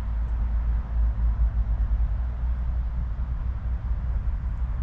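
Wind buffeting the microphone outdoors on the ice: a steady low rumble that flutters unevenly.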